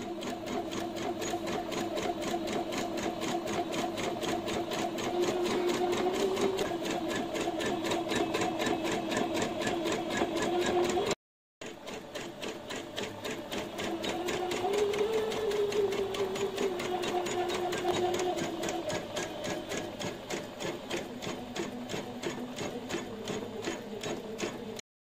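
Usha Janome Memory Craft 200E embroidery machine stitching a design, its needle going at a rapid, even rhythm over a motor hum that drifts up and down a little in pitch. The sound cuts out for a moment about eleven seconds in, then the stitching resumes.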